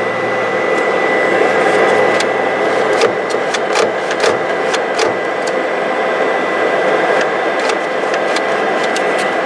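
HP large-format inkjet plotter running with a steady whir of fans and a thin high whine, while its print-head mechanism clicks and knocks again and again. The owner suspects the print-head carriage is rather seriously jammed.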